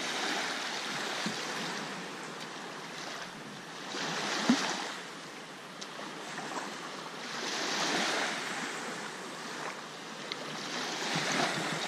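Small lake waves washing onto a sandy shore, swelling and fading every few seconds.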